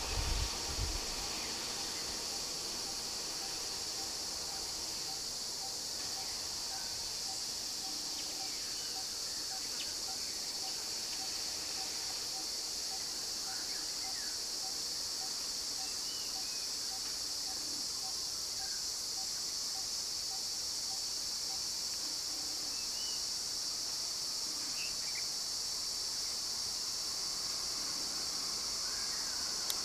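Insects buzzing in a steady, high-pitched drone, with scattered short bird chirps. For a stretch in the middle there is a run of soft, even pips about twice a second, and a brief low thump right at the start.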